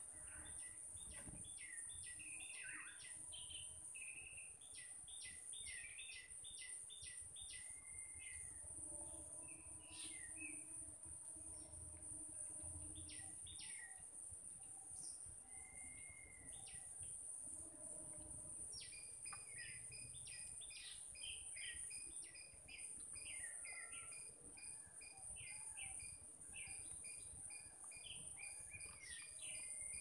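Wild birds calling in short repeated notes and quick chirping series, busier in the second half, over a steady high-pitched drone of insects.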